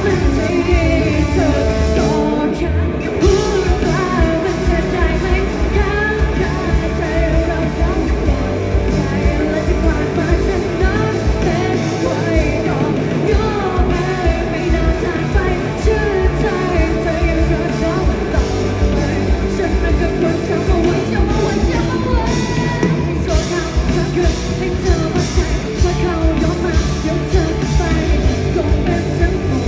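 A rock band playing a song live, with a lead singer over the full band.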